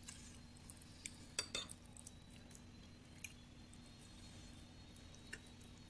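A metal spoon clinking and scraping against a ceramic plate a handful of times while stirring food, each contact short and light, over a faint steady hum.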